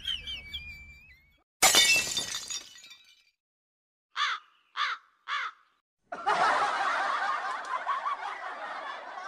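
Comedy sound effects laid over the scene: a sudden crash that dies away over about a second, three short squeaky notes, then a few seconds of laughter.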